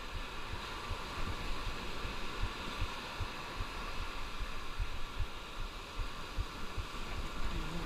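Steady rushing noise of wind and surf on a chest-mounted camera's microphone, with low, irregular thumps throughout.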